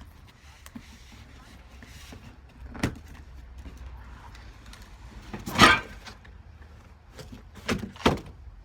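A few sharp knocks and bumps of objects being handled, over a low steady hum: one about 3 s in, a louder, longer clatter about halfway, and two quick knocks near the end.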